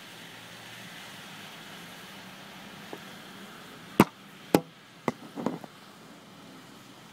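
Steady hiss of rain and street traffic, broken about four seconds in by two sharp knocks half a second apart and then a few smaller clicks: handling noise as the camera is moved.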